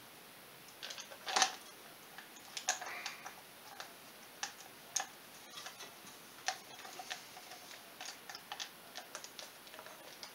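Irregular light metallic clicks and taps as engine-mount bolts are fed through the steel frame and started by hand into an ATV engine's mounts. The loudest is one sharper knock about a second and a half in.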